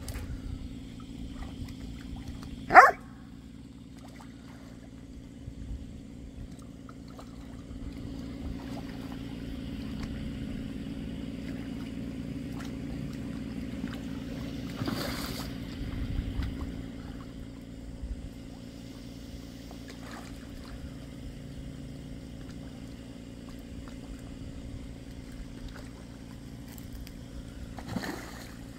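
Things splashing into lake water, once around the middle and again near the end, over a steady low hum. A single loud, short, sharp sound comes about three seconds in.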